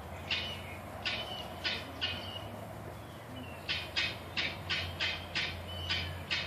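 Displaying Indian peacock's fanned train and wings shaking in short, dry rustling bursts. There are a few spaced bursts at first, then a quick run of about eight, some three a second, from just past halfway.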